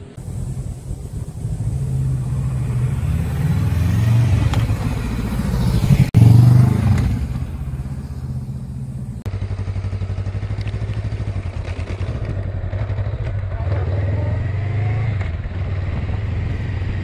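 Honda Rebel 500 (CMX500) parallel-twin motorcycle engine running under way. It grows louder over the first six seconds, is loudest around six to seven seconds in, and then runs steadily.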